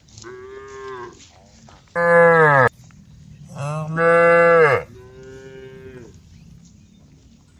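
Cows mooing, four calls one after another: a softer, higher moo, then two loud, low moos that drop in pitch at the end, then another softer, higher moo.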